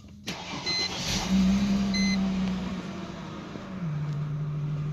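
Car engine idling, heard from inside the cabin, with two short electronic dashboard beeps near the start. The idle hum drops to a lower, steady pitch a little before the end.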